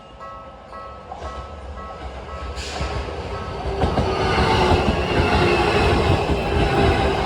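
Train on the Keisei Oshiage Line coming through a level crossing. It grows louder over the first four seconds into a steady rumble of wheels on rails. The crossing's electronic warning bell is heard ringing at the start, then is drowned out by the train.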